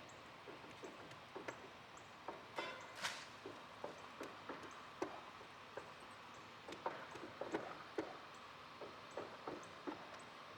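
Distant hammering from roofers working on the roof: irregular knocks, a few a second, with one sharper, louder crack about three seconds in.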